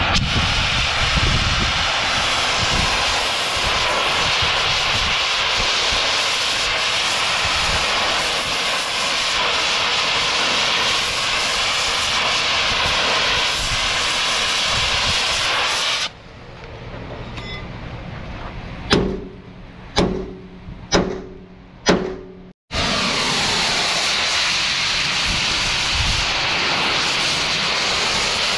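Oxy-fuel cutting torch flame giving a loud, steady hiss as it heats rivets on a steel truck chassis rail. Partway through, the hiss stops and four sharp metallic strikes ring out about a second apart, then the torch hiss resumes.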